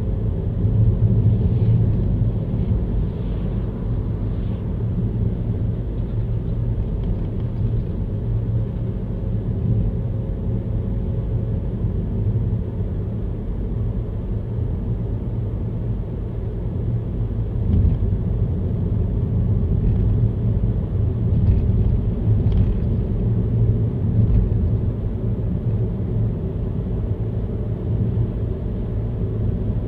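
Steady low rumble of a car driving, engine and tyre noise without let-up.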